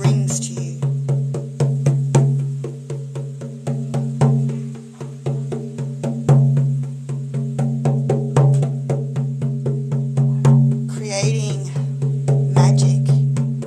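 Large rawhide frame drum beaten in a steady rhythm of about three strokes a second, each stroke ringing on in a low hum. A woman's voice sings or chants over the drum twice near the end.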